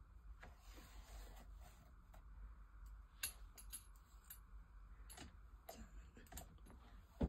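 Faint scattered clicks and rustles of hand-sewing a lace closure onto a mesh dome wig cap: the needle and thread drawn through the lace and the cap handled on the wig block, with a few sharper clicks in the second half.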